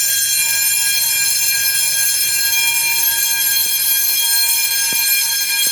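Fire alarm bells ringing steadily and without a break, the system in alarm and sounding on continuous (non-coded) signalling.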